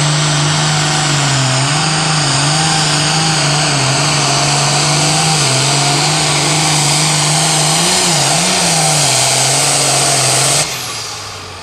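International heavy super stock pulling tractor's diesel engine running flat out under load, a steady loud note that wavers slightly in pitch, with a high whine over it. About ten and a half seconds in, the engine note cuts off suddenly, leaving a falling whine.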